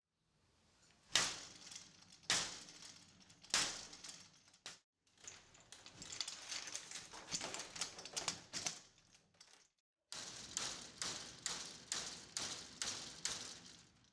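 Security screen door being struck and pried with a metal bar in a forced-entry test: four heavy knocks about a second apart, then a quick run of rattling knocks, then a steady series of knocks about two a second.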